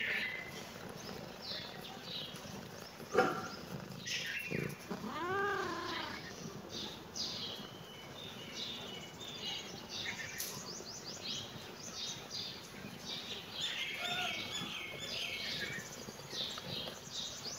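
A domestic cat meows once about five seconds in, a drawn-out call that rises and then falls in pitch. Small birds chirp in the background, and a brief sharp sound comes about three seconds in.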